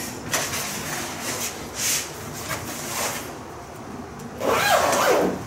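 Fabric of a padded tripod carry case rustling and scraping as a folded tripod is slid into it and the bag is handled, with a louder scrape near the end.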